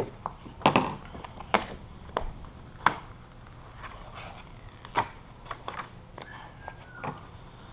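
Vinyl stripe and its paper backing liner being handled and peeled apart: scattered short, sharp clicks and crackles, irregularly spaced.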